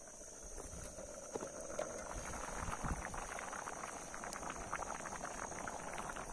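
A large pot of rice boiling hard over a wood fire: a dense bubbling crackle of many small pops, a little louder from about a second in.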